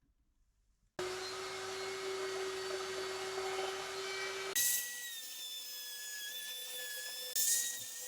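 Router with an eighth-inch straight cutter running and cutting a groove in wood: a steady high whine that starts abruptly about a second in. Halfway through, the pitch jumps abruptly to a higher, slightly wavering tone, with two brief louder bursts.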